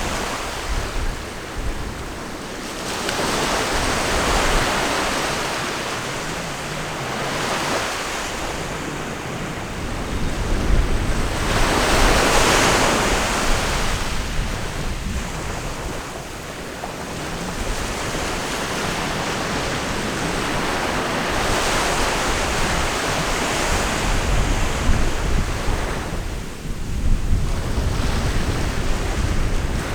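Ocean surf: waves breaking and washing in, swelling and fading every several seconds, with wind buffeting the microphone.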